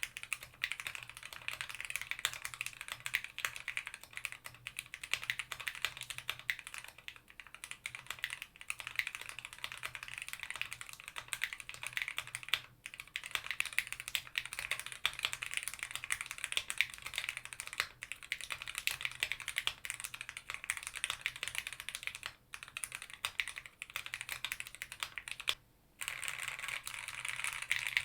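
Fast, steady typing on a mechanical keyboard fitted with custom 'Cheerios' frankenswitches (switches built from parts of different switch models), dense rapid keystroke clicks broken by a few short pauses.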